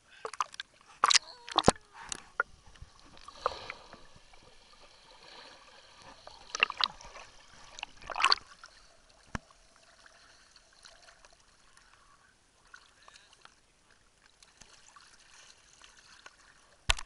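Sea water splashing and sloshing around a camera held at the waterline. There are several sharp splashes in the first couple of seconds and again about two-thirds of the way in, as the camera dips under the surface, with quieter gurgling and lapping between.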